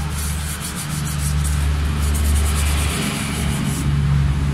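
Paintbrushes scrubbing the passages of a bare engine block wet with cleaning fluid, a rough repeated rubbing that is busiest in the first half. It sits over a steady low hum.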